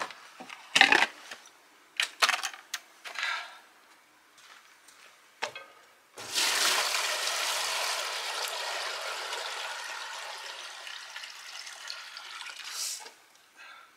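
Maple sap poured from a bucket into a steam-table pan on a drum evaporator. The steady pour starts about six seconds in, slowly tapers off and stops near the end, after a few short knocks and clatters.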